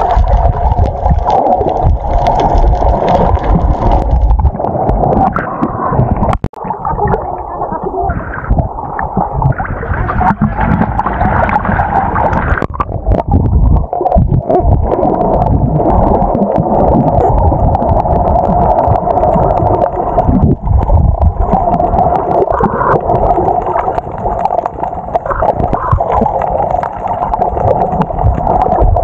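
Muffled underwater sound from a camera held below the surface while snorkeling: gurgling, rushing water and bubbles from swimmers kicking, over a steady droning hum, with a brief dropout about six seconds in.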